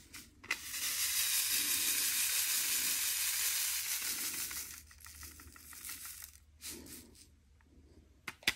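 Square diamond-painting drills being shaken in a plastic drill tray: a continuous rattling hiss for about four seconds as the loose drills settle into rows, then fainter shuffling and a couple of sharp clicks at the very end.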